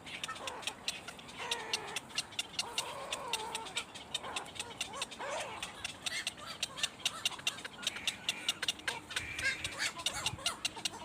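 Bird calls, short bending cries, over a rapid run of sharp clicks.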